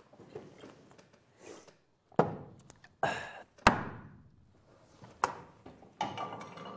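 A handful of hollow thunks and knocks on a wooden tabletop, about five in all, the sharpest and loudest near the middle, each with a short ringing tail in the room.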